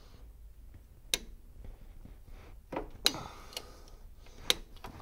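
About five sharp metallic clicks, spaced irregularly, from turning the 3.6 V6's crankshaft over by hand to bring the intake valves shut.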